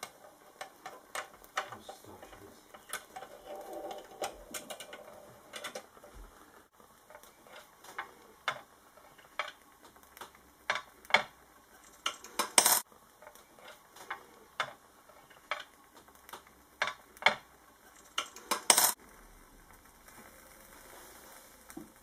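Irregular metallic clicks and clinks from hands working on a Mamod toy steam locomotive while its burner is lit, with the loudest clinks about halfway through and again near the end.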